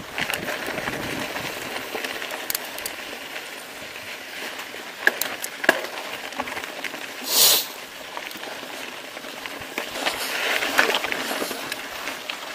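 Mountain bike rolling over a rocky dirt trail: tyres on loose gravel with scattered clicks and knocks of stones and the bike rattling. A brief louder rush of noise comes about seven seconds in.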